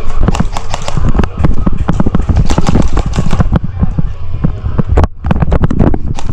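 Irregular heavy thuds and knocks, several a second, with a low rumble: running footsteps and gear jolting the body-worn microphone, pausing briefly about five seconds in.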